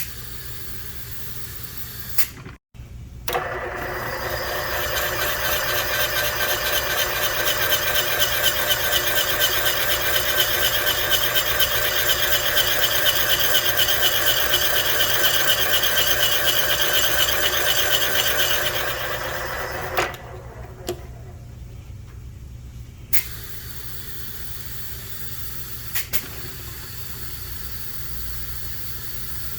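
Machine spindle driving a cutter that trims a big-block Chevy valve guide down for a valve-stem seal: a steady whirring cut from about three seconds in until about twenty seconds, over a constant low hum. A few sharp clicks come after the cutter stops.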